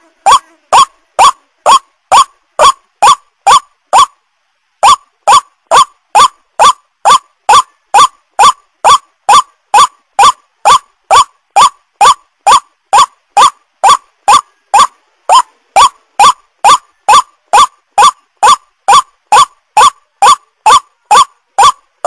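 White-breasted waterhen (ruak-ruak) lure call: loud, short rising notes repeated about twice a second, with one brief break about four seconds in. It is a recorded bird-luring call played to attract waterhens.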